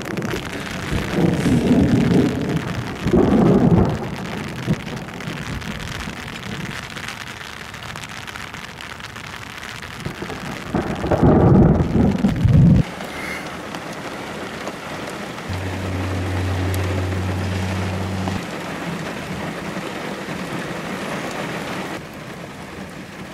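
Rain falling steadily under a thunderstorm, with two low rumbles of thunder, one in the first few seconds and another around the middle that cuts off abruptly.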